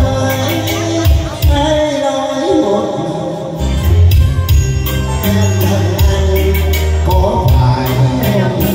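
A man singing a Vietnamese song into a microphone over a recorded backing track with a steady beat and heavy bass.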